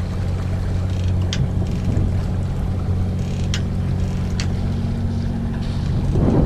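Sailing catamaran's engine running steadily under power on a calm, windless sea, a low even hum with a few faint clicks and a brief louder swell near the end.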